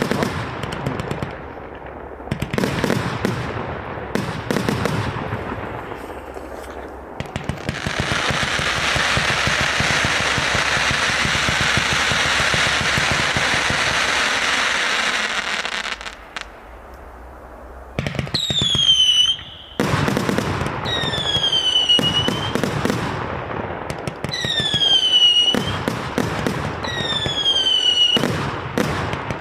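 A 1.3G firework cake firing. First comes a string of launch bangs, then a dense, steady crackle for about eight seconds. After a short lull, a run of shots follows, each with a whistle that falls in pitch and lasts about a second.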